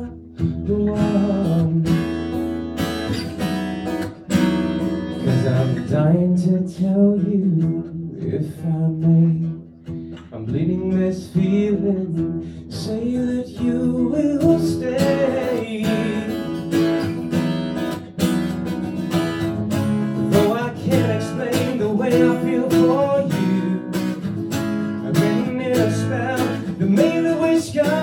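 A man singing to his own strummed acoustic guitar, amplified through a microphone at a live performance.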